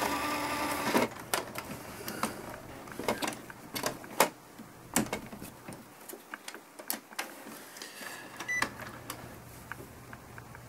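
Epson XP-8500 photo printer's mechanism whirring for about the first second, then stopping after a paper-out error. It is followed by a run of irregular plastic clicks and knocks as the paper cassette, sitting slightly out of place so that the printer thinks it has no paper, is handled and reseated.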